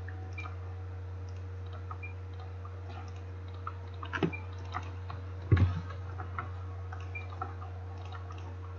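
Steady low electrical hum with a faint steady tone above it. Scattered faint clicks run through it, and there is one low thump about five and a half seconds in.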